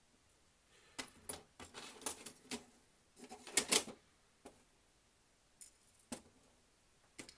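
Small locomotive parts and a screwdriver clicking and rattling against the worktop as they are handled: a busy run of clicks about a second in, the loudest near the middle, then a few single taps.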